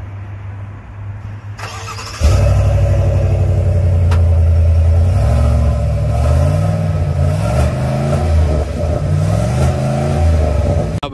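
Exhaust of a Chevrolet Tahoe's 5.3-litre V8, heard at the tailpipe. A low hum for about two seconds, then the engine note suddenly gets much louder, and its pitch rises and falls several times.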